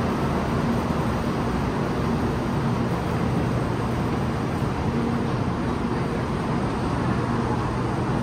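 Steady rushing background noise of a high-speed rail station platform, with a faint low hum underneath.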